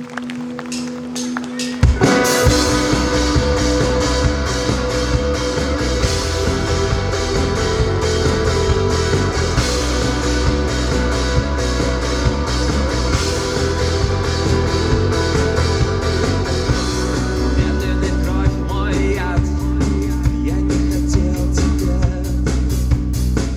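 Live rock band playing: a held note for the first couple of seconds, then drums, bass and electric guitars come in together and play on loudly with a steady beat.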